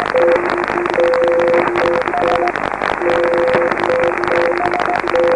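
Several Morse code (CW) beacons heard at once on a shortwave receiver tuned to 7039 kHz. Each keys its own steady tone at a different pitch, in dots and dashes that overlap, over a steady hiss and crackle of band static.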